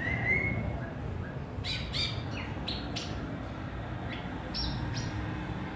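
Asian pied starling (pied myna) calling: a rising whistle, then a quick run of short, sharp, high notes, and a few more after a pause.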